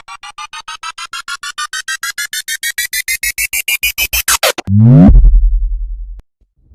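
Synthesized transition sound effect: a rapidly pulsing electronic tone, about nine beats a second, rising steadily in pitch for about four and a half seconds. It then sweeps quickly downward into a loud deep bass drop that fades and cuts off.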